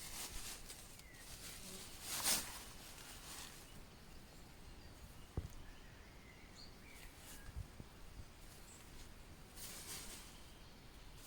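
Quiet forest ambience with faint bird chirps now and then. Soft swells of hiss come and go, the loudest about two seconds in, and there is a single click about five seconds in.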